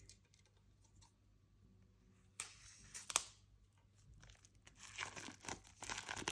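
Plastic shrink wrap being torn and peeled off an album package, crackling. There are a few sharp tears around the middle, then steadier crinkling that builds near the end.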